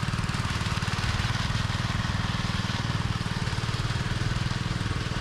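Engine of a concrete power trowel (finishing machine) running steadily, with a rapid, even pulse.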